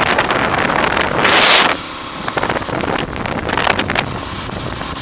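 Wind buffeting the microphone of a camera held on a moving motorbike, with a strong gust about one and a half seconds in, over the motorbike's engine running underneath.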